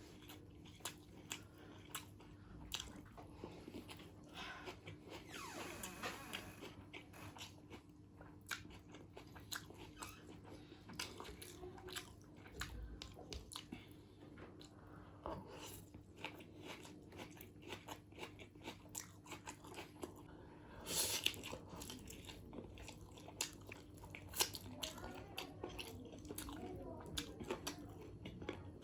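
Close-miked eating of chicken biryani: steady chewing and biting with many short wet clicks and crunches, a louder flurry about three quarters of the way through.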